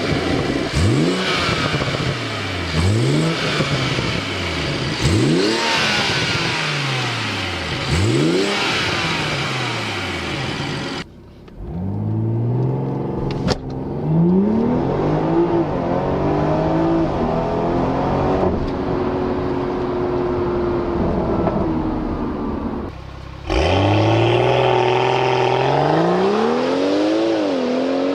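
BMW M140i's turbocharged straight-six engine being revved repeatedly, the revs rising and falling every second or two. After an abrupt cut, the car accelerates with the engine note climbing through the gears, and there is another cut about two-thirds of the way in.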